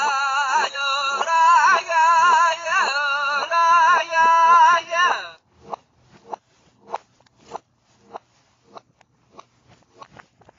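A high voice singing short phrases with a wavering, warbling pitch, which cuts off abruptly about five seconds in. Scattered light clicks and taps follow, a few each second.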